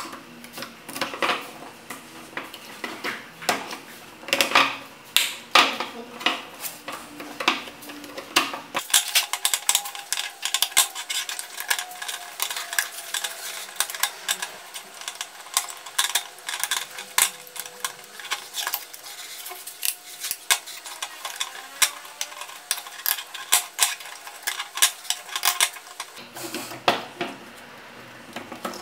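Thin wooden strips clicking and clattering against each other as they are pushed into the slots of a notched wooden hub and ring, with many short, sharp knocks.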